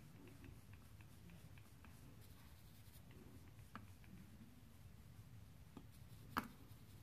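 Near silence: faint low room hum with soft strokes of a makeup brush on the cheek, and two small clicks, the sharper one near the end.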